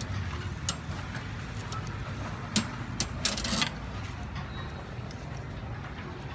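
Metal tongs clicking against the steel rods of a charcoal grill grate a few times while pork slices are turned, with a short scrape about three seconds in, over a steady low rumble.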